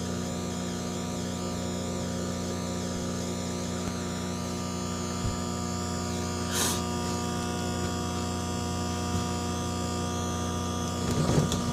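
Microwave oven running with a steady electrical hum, while the cut-up aluminium can inside arcs with brief crackling snaps: one a little past halfway and a loud cluster near the end.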